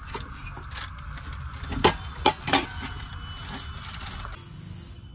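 Utensils being handled in a metal-and-wood storage box: several sharp knocks and clinks, the loudest about two seconds in, as an aluminium pot is taken out and a plastic sack is handled, over a steady low rumble.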